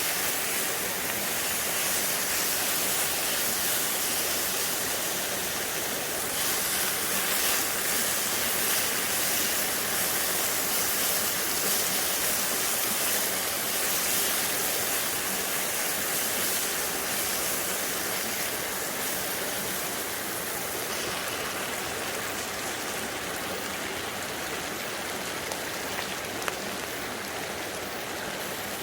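Valley stream rushing steadily over rocks, a continuous even hiss of water, with two faint ticks near the end.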